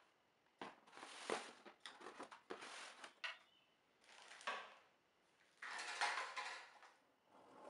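Clear plastic packaging crinkling and the wire cage parts rattling against the plastic tray as they are unpacked by hand, in three irregular bursts of handling noise.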